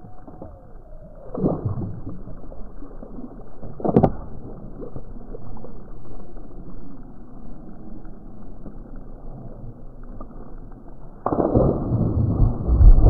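Slowed-down replay audio of a fish leaping out of the water and splashing back in: deep, muffled water sounds with a sharp knock about four seconds in and a sudden louder stretch of splashing near the end.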